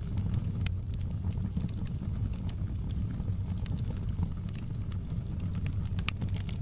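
Wood fire crackling in a fireplace: a steady low rumble of flames with scattered sharp pops and crackles.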